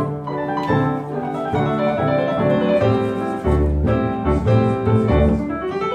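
Keyboard music playing an introduction of chords and melody, with heavier bass notes coming in about three and a half seconds in.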